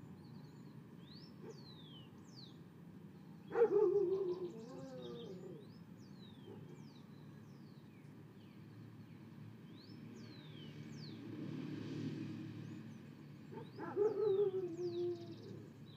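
Birds chirping in a garden with repeated short downward-sweeping calls. Twice, a few seconds in and near the end, a louder animal gives a drawn-out wavering call lasting about a second and a half.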